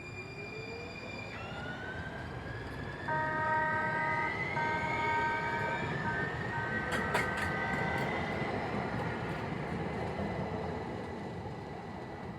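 San Diego Trolley light-rail train pulling away, its traction motors giving a whine that rises steadily in pitch. From about three seconds in, the horn sounds in four blasts, the last ending near eight seconds, with a few sharp clicks near seven seconds.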